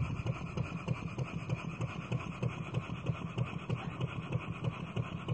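Vertical single-cylinder model steam engine running steadily, its exhaust steam chuffing in a quick, even beat. It has just been reversed and runs smoothly that way.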